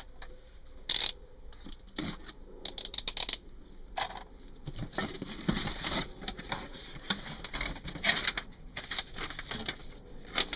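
A cardboard product box being opened and its packaging handled: irregular rustling, scraping and sharp clicks, with a quick run of clicks about three seconds in.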